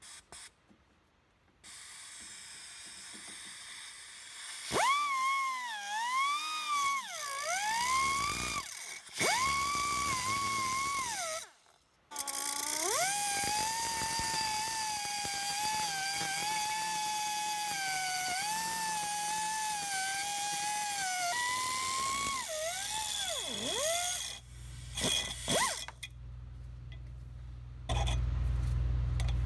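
Pneumatic cut-off tool with a small abrasive wheel whining at high speed as it cuts through a steel bracket on the front strut. The whine drops in pitch each time the wheel bites into the metal and climbs back as it frees up, with a few short pauses between passes. A low steady hum comes in near the end.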